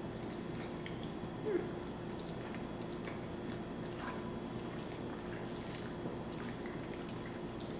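Close-up mouth sounds of eating: slurping and chewing a mouthful of cheesy spaghetti casserole, with small wet clicks and smacks, and one brief louder sound about a second and a half in. A faint steady hum lies underneath.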